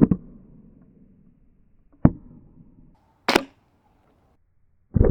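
Brookstone robot vacuum being smashed up: a clattering rattle of hard plastic ends just after the start, a single knock comes about two seconds in, and a sharp crack follows about a second later. Another loud clatter begins near the end.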